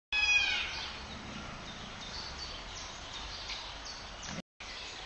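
Outdoor ambience with birds chirping faintly; just after the start a bird gives a brief, bright run of descending chirps.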